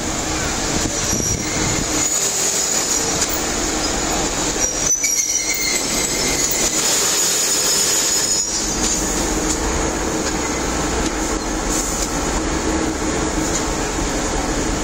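TEP70 diesel locomotive rolling slowly past at close range, its engine running steadily, with a high wheel squeal that comes and goes, as it draws up to couple onto the passenger cars.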